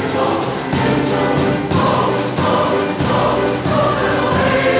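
A choir singing in harmony, several voice parts holding and moving between sustained notes.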